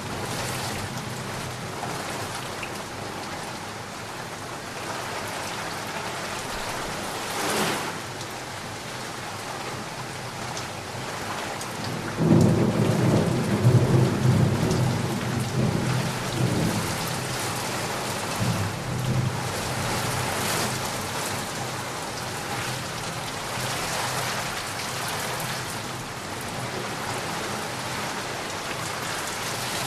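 Heavy rain falling steadily, with a brief crack about seven seconds in. About twelve seconds in a loud thunderclap breaks out suddenly and rumbles on for several seconds before fading.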